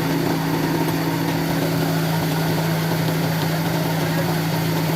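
Motor of a wood-cutting machine running steadily with a constant low hum, its pitch and loudness unchanging.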